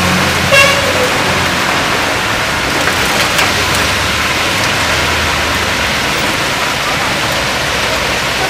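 Heavy rain pouring on a busy road: a steady hiss of rain and of traffic on the wet tarmac. A vehicle engine hums low through the first second or so, and a short horn toot comes about half a second in.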